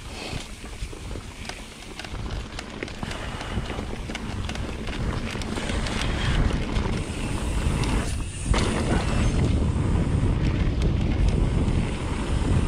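Wind buffeting the microphone of a mountain bike rider's camera, growing louder through the first half as speed builds. Scattered clicks and rattles come from the bike over the trail surface.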